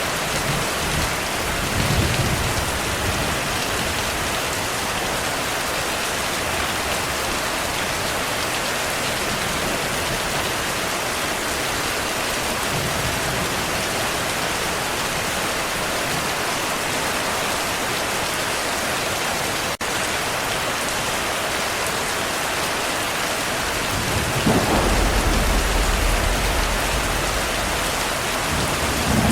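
Steady heavy rain with thunder rumbling: a short rumble about two seconds in, a faint one partway through, and a longer, louder roll of thunder in the last few seconds. There is a momentary dip in the rain sound about two-thirds of the way through.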